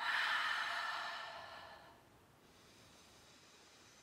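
A woman's long, deep breath out, lasting about two seconds; it starts suddenly and fades away.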